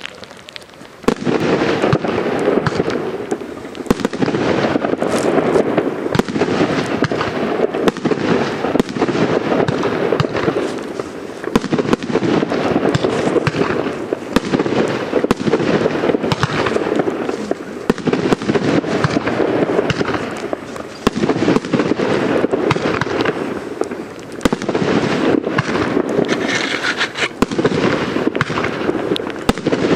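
Two Blackboxx 'Arena' 2-inch aerial shell batteries (category F4 fireworks) firing together: a dense, continuous barrage of shot launches and shell bursts, starting about a second in.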